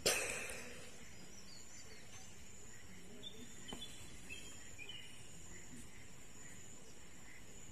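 Faint outdoor ambience of scattered bird chirps and a steady high insect drone, opened by one sharp knock at the start that dies away within half a second.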